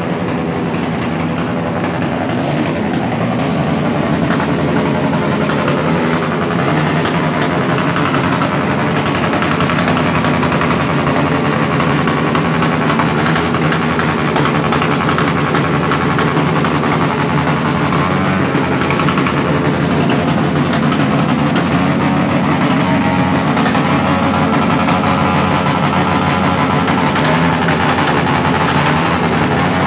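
Several motorcycle engines running together, loud and continuous, with the pitch wavering now and then as they are revved.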